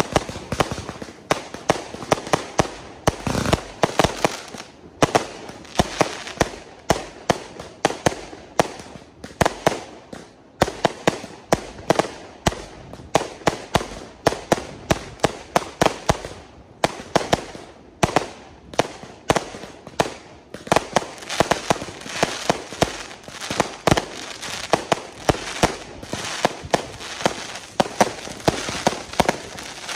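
Fireworks barrage: shots launching and bursting in rapid succession, several sharp bangs a second, with a deeper boom about three seconds in and the bangs coming thicker in the second half.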